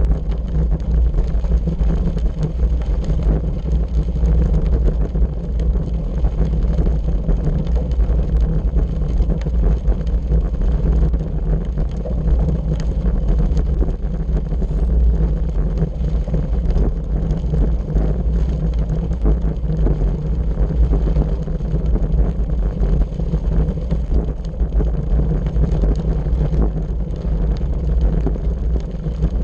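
Steady wind noise buffeting a bicycle-mounted camera's microphone, mixed with the crunch and rattle of the bike's tyres rolling over a gravel road.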